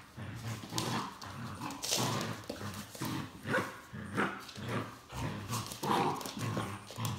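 Border collie puppies and a Doberman growling as they tug at a plush toy, with a few short yaps. Claws scrabble and click on the wooden floor.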